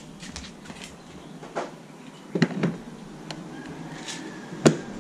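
GIVI B42N Antartica plastic top box being set onto its mounting plate on a scooter's rear rack: a few hard plastic knocks and taps, then one sharp click near the end as the box latches into place.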